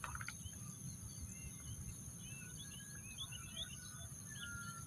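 Outdoor field ambience: a steady, high-pitched insect drone with many short bird chirps scattered through it, over a low rumble.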